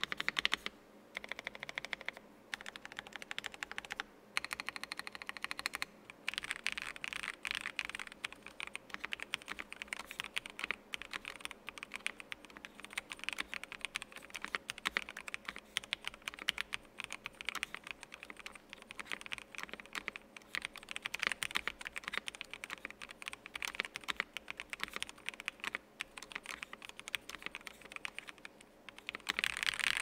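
Typing on a CannonKeys Brutalist v2 1800 custom mechanical keyboard with a metal case and thick, tall sculpted keycaps. For the first few seconds single keys are pressed with short pauses between them. After that the clicking runs into continuous fast two-handed typing.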